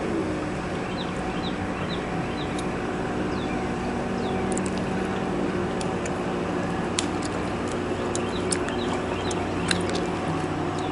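An engine runs steadily at an even low pitch. There are short high chirps in the first few seconds and scattered sharp clicks in the second half.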